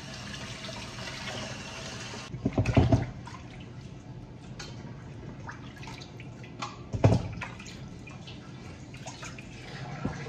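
Kitchen faucet water running over salmon steaks being rinsed in a stainless steel bowl, stopping about two seconds in. Wet handling of the fish and stainless bowls follows, with dripping, small clinks and two louder thuds, near 3 and 7 seconds.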